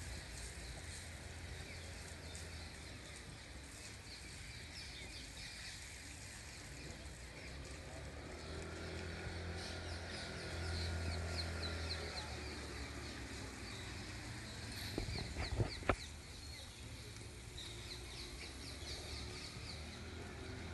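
Outdoor ambience: birds chirping repeatedly over a steady low hum that swells in the middle, with a few sharp knocks about fifteen seconds in.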